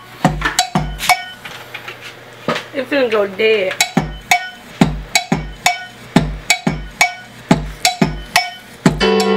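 Programmed drum beat playing back, with deep kick hits and sharp snare or hi-hat hits at a steady tempo. Early on the kick drops out and a short sliding pitched sound is heard, and the full beat comes back about four seconds in.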